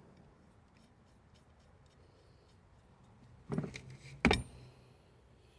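Small metal parts, a washer and locking nut going onto a clutch-rod bolt, clinking a few times with one sharper metal knock about four seconds in.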